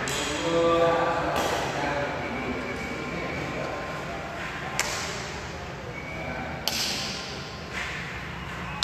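Badminton rackets striking a shuttlecock during a rally: three sharp hits a few seconds apart, echoing in a large hall.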